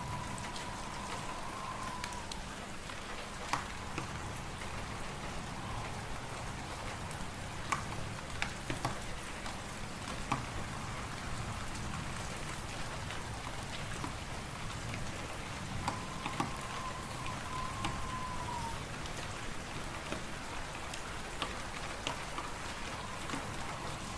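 Wood fire crackling in a fireplace, with scattered sharp pops over a steady hiss of wind and blowing snow. A faint, wavering thin whistle comes and goes twice.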